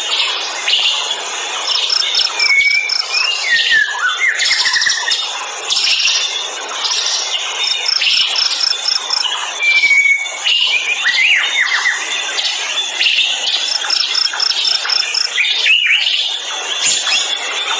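Dense chorus of forest birds calling at once. One bird repeats a quick run of about eight short high notes three times, about six seconds apart, among gliding whistled calls from others.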